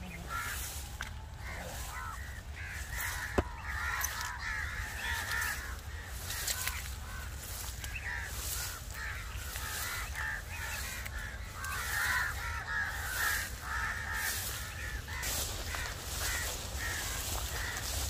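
Birds calling in a busy, irregular chatter of short calls, with one sharp click about three and a half seconds in.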